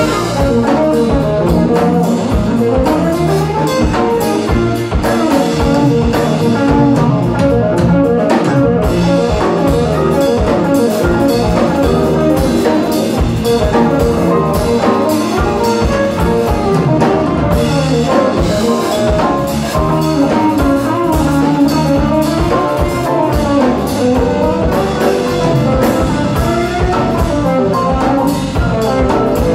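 A live jazz band playing together: saxophone, electric guitar, bass guitar and drum kit.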